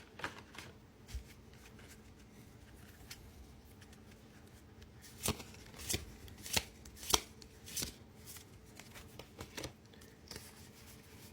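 Pokémon trading cards handled and flicked through by hand: soft rustling, then a run of five or six sharp card clicks and snaps about halfway through.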